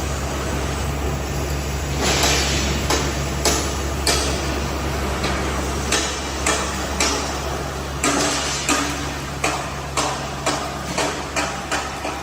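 TM 460GB semi-CNC band saw running with a steady low hum. From about two seconds in come a series of sharp knocks, closer together toward the end.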